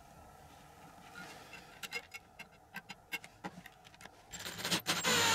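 Light clicks as a cut piece of hacksaw blade and a washer are positioned on a wooden board, then a louder rasping near the end as a screw is driven through the blade into the wood with a screwdriver.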